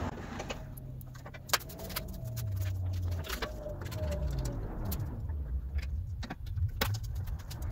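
Radiator being handled and fitted into a crosskart's steel tube frame: scattered light clicks and knocks, one sharper knock about one and a half seconds in, over a low hum.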